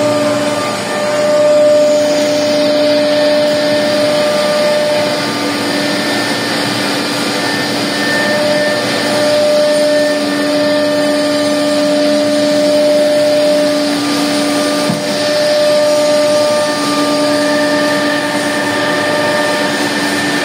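Machinery running steadily: a constant whine with a few steady overtones over an even mechanical hum.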